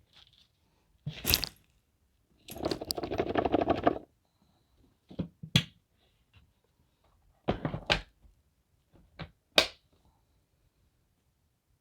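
Handling noises of hard objects: a few sharp clicks and knocks, and a rattling scrape lasting about a second and a half a little after the start. No vacuum motor is running.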